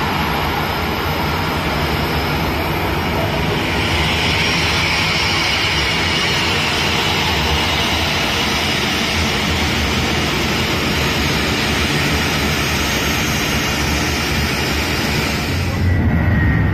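Boeing 737-800's CFM56-7B turbofan engines at taxi idle as the airliner taxis in to its stand, a steady jet rumble with a hissing whine that grows stronger as the aircraft comes closer. Near the end the whine drops away, leaving a lower rumble.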